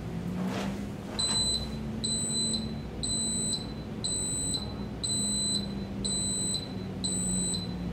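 Alarm beeper on a Victory ULTRASPEC refrigerator's V-TEMP controller sounding its power-failure (HACCP) alarm. A high-pitched electronic beep starts about a second in and repeats about once a second.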